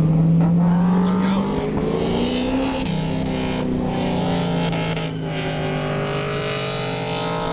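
Holden VT Commodore's LS1 V8 pulling under acceleration. Its note climbs, then drops sharply with an upshift about three seconds in, and holds a steady drone after that.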